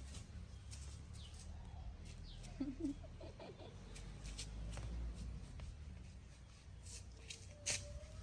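Faint animal calls: scattered short high chirps, and a brief run of clucking-like calls about two and a half seconds in. A sharp click comes near the end, over a low steady rumble.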